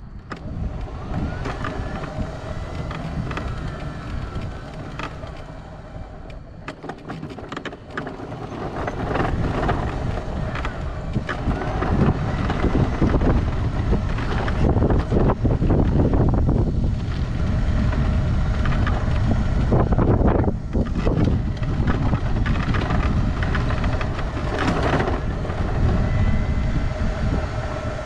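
Power wheelchair driving over rough, cracked asphalt: the wheels rumble steadily over the pavement, with a faint electric motor whine and scattered knocks as it rolls over cracks. The rumble grows louder partway through.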